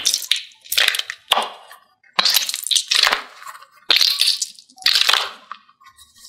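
A squishy gel-bead stress ball squeezed repeatedly by hand, giving a series of wet, crackling squelches, about six squeezes in a row.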